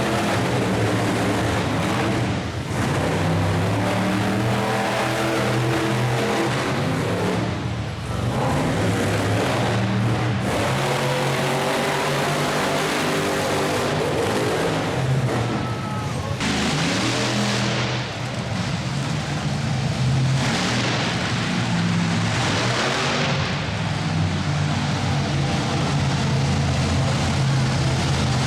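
Monster truck engine running loud and revving in an arena, with music also audible; the sound turns noticeably harsher and brighter about halfway through.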